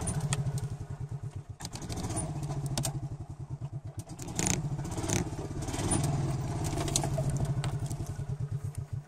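Golf cart engine running with a fast, steady throb as the cart drives along, with several short clunks and rattles from the cart.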